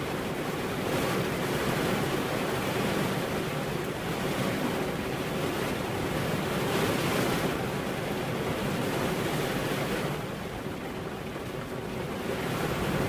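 Steady heavy rain, a dense hiss that swells and eases, with a softer spell about ten seconds in.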